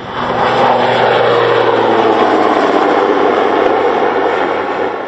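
Military helicopter making a low pass. Its rotor and engine noise rises sharply just after the start, stays loud, then eases off near the end as it goes past.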